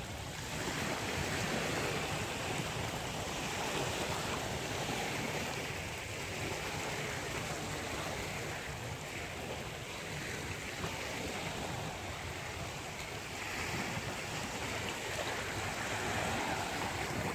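Sea surf washing onto a beach: a steady rush of breaking waves that swells and eases slowly, with a low rumble underneath.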